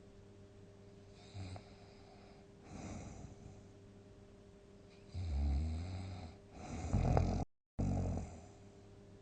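A sleeping person snoring. A soft breath comes about three seconds in, then two loud, deep snores past the middle. The sound cuts out abruptly for a moment, then one shorter snore follows.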